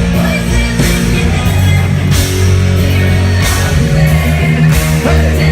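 Loud live rap-rock concert music through a PA: a heavy instrumental beat with long sustained bass notes and crashing cymbals, with no rapping.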